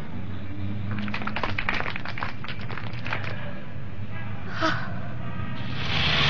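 Cartoon street sound effects: a low steady hum with a flurry of short clatter and what may be voices, then the rush of speeding cars swelling in near the end.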